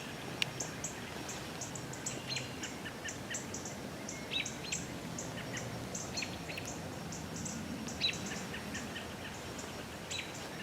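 Small songbirds chirping in the woods: a steady string of short, very high chirps, about four a second, with a few lower chirps here and there.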